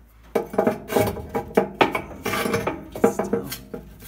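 A firebrick and the ash grit in the corner scraping and knocking against the steel firebox of a wood-burning fireplace insert as the brick is worked into place. The metal rings with each knock. A quick run of scrapes and knocks starts about half a second in.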